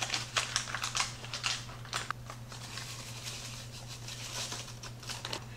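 Cardboard box and paper inner bag of dry corn muffin mix crinkling and tearing open with a run of small clicks, then the powdery mix pouring softly into a glass mixing bowl.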